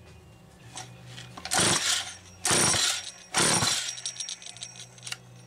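Homelite 150 chainsaw's recoil starter pulled three times in quick succession, each pull a short rasping whir of about half a second as the engine is cranked over without starting.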